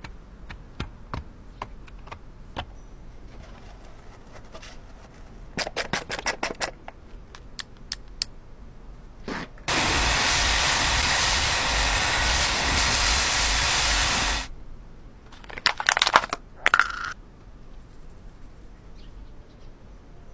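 A steady spraying hiss lasting about five seconds, starting about ten seconds in and stopping suddenly. Before it come scattered taps and a quick run of clicks, and after it more clicks of handling.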